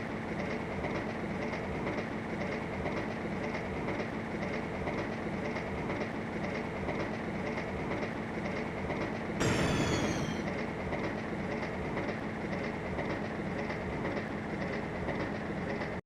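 Train running along the track with a steady clickety-clack of wheels over rail joints. About nine and a half seconds in, a louder blast about a second long falls in pitch.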